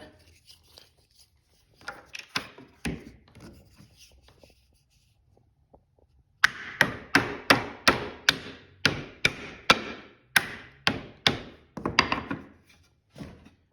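Hammer taps driving a corner bracket into the plywood cabinet frame to square it up. A few scattered taps come first, then, about halfway through, a steady run of some fifteen sharp taps at two to three a second.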